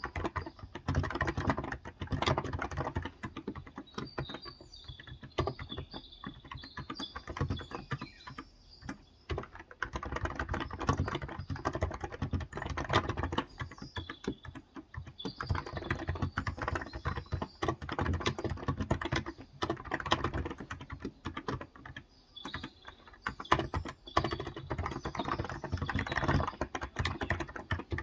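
Fast typing on a Cox Endeavour electrostatic-capacitive (Topre-style) 35g tenkeyless keyboard: rapid uneven keystrokes in bursts with brief pauses. Birds chirp faintly in the background.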